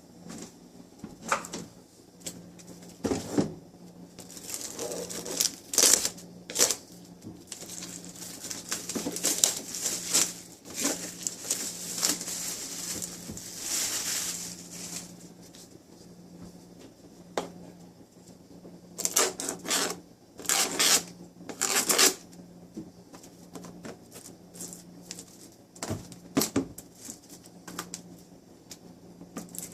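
Cardboard box and packaging being handled and opened by hand: scattered clicks and knocks, with a long stretch of rustling and scraping in the middle and a cluster of sharp taps a little past halfway.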